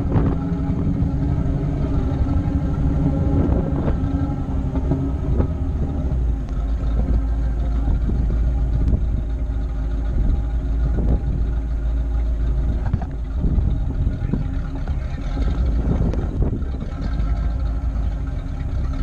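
A Jeep driving slowly over an off-road trail: engine running under a heavy low rumble of wind on the microphone, with scattered knocks and rattles.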